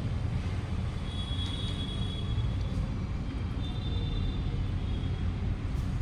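Steady low background rumble, with faint high thin tones coming and going.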